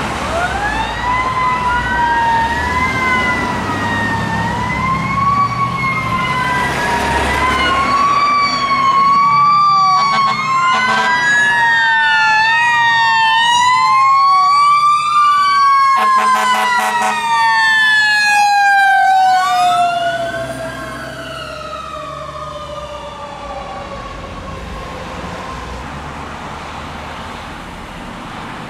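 Fire apparatus sirens wailing as Sutphen Monarch fire engines pass, several sirens rising and falling out of step, with short horn blasts in the middle. After about two-thirds of the way through the level drops and a siren winds down in pitch as the rigs move off.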